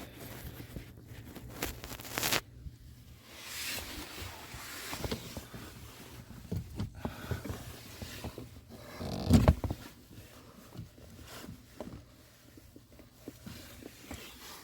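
Hand-tool work on a truck's stock pedal pad: scattered scrapes, rustles and clicks, with a sharp scrape about two seconds in and one heavy thump about nine seconds in.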